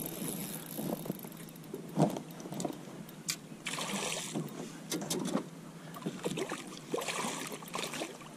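Hooked smallmouth bass thrashing at the surface beside a boat as it is netted: irregular splashing with scattered sharp knocks.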